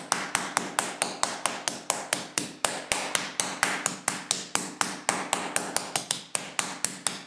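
Meat mallet pounding a plastic-wrapped flank steak on a granite countertop, tenderising and flattening it. The blows come rapid and evenly spaced, about four to five sharp strikes a second.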